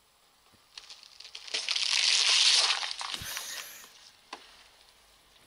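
Whole watermelon crushed under a car tyre: a wet crunching and splattering that builds about a second in, is loudest for about a second and a half, and ends in a dull thump before fading.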